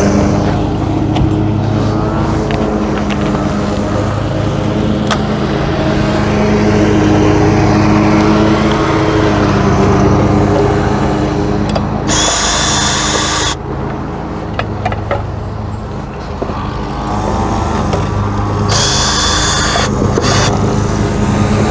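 Small gasoline engine of a lawn mower running steadily in the background, with two short high-pitched bursts about twelve and nineteen seconds in.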